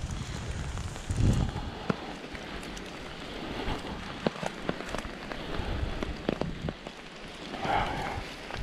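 Rain on an umbrella held overhead: separate drops tapping sharply on the fabric over a steady hiss of rain, with a low thump about a second in.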